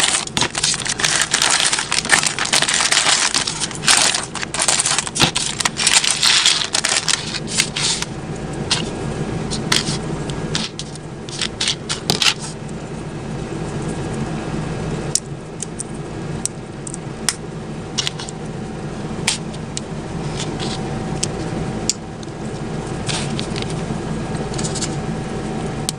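A plastic blind bag crinkling as it is cut open with scissors and handled, for the first several seconds. Then scattered sharp clicks of small plastic building bricks being picked up and pressed together, over a steady low hum.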